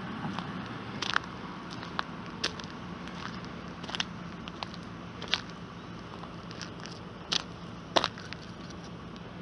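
Footsteps on gritty asphalt: scattered sharp crunches about once a second, uneven in spacing and loudness, over a steady low hum.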